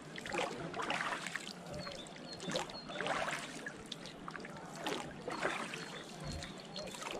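A wooden oar dipping and pulling through shallow water as a rowboat is rowed: a series of splashy swishes, one with each stroke.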